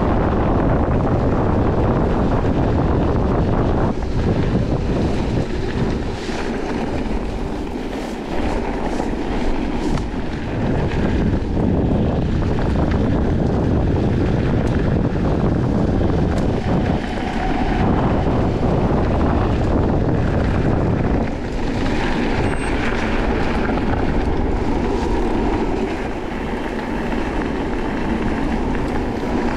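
Heavy wind buffeting the camera microphone on a fast-moving electric mountain bike, mixed with tyre rumble on a dirt and gravel track. Scattered knocks and rattles come from the bike going over bumps.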